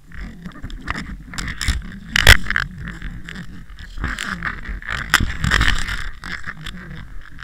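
Muffled underwater sound picked up by a camera hanging on a mackerel handline: a low rumble broken by irregular knocks and clunks, the loudest a little over two seconds in.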